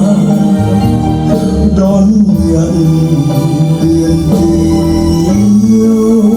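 Music playing: a slow piece with long held melody notes moving over a steady bass line.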